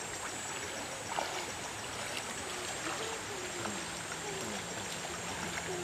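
Shallow stream running and trickling over a rocky bed, stirred by people wading through it.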